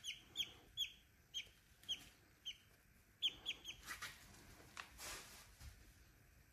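Baby chick peeping: about nine short, high peeps, each falling in pitch, spaced roughly half a second apart, with a quick run of three about three seconds in.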